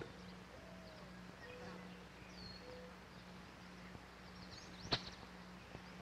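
Quiet 16mm film soundtrack: a steady low hum under hiss, a few faint chirps in the first few seconds, and a single sharp click about five seconds in.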